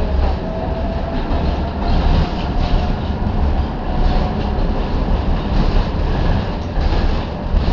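Tatra T6B5 tram running along the track, heard from on board: a steady running noise of wheels on rails with occasional knocks and a faint whine in the first couple of seconds.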